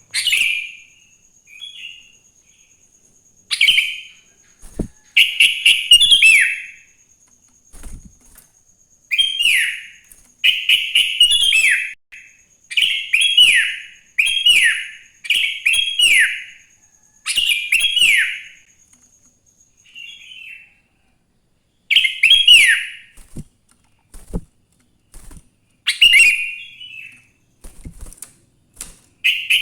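Sooty-headed bulbul (kutilang) singing: short bursts of quick, falling whistled notes repeated every second or two, with pauses near the start and about two-thirds through.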